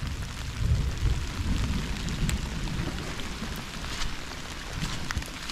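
Steady rain falling, with many small scattered drop ticks over a wavering low rumble.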